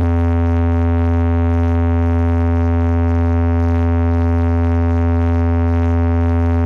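Synthesized bass drone: one steady, very loud low tone with a buzzy stack of overtones, held unbroken without any change in pitch.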